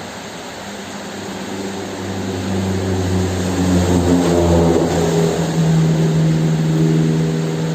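A droning engine with a low, steady hum swells louder from about two seconds in and stays loud, over a continuous hiss of rain.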